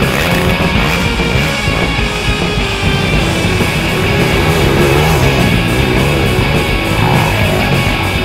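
Rock music with electric guitar, steady and loud.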